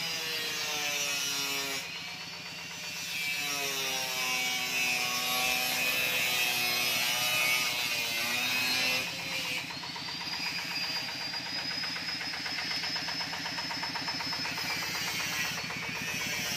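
Power tool motor running with a high whine over a fast, even mechanical rattle; the whine fades about two seconds in and comes back about ten seconds in.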